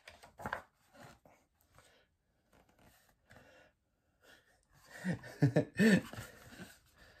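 A man's short breathy chuckles, a few quick bursts of laughter about five seconds in, after a stretch of near quiet in a small room.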